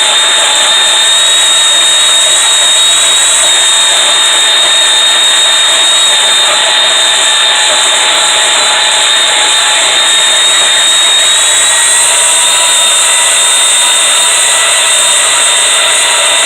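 Power saw running continuously as it cuts through 1-inch steel flat bar: a loud, steady whine with a high tone held throughout, the pitch shifting slightly about twelve seconds in.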